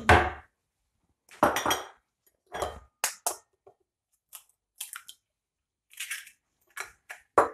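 An egg's shell cracked and pulled apart over a small ceramic bowl, heard as a string of short crackles and light taps among clinks of crockery on the counter.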